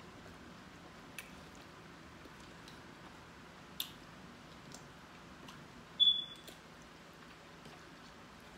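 Quiet eating sounds: chewing of a seafood boil with a few faint mouth clicks and smacks, and one short, sharp high squeak about six seconds in.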